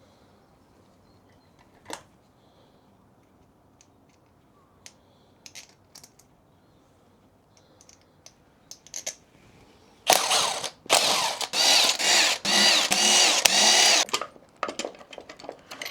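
A few light clicks of tools on metal parts, then about ten seconds in a small power tool runs in several short bursts for about four seconds, its motor pitch wavering.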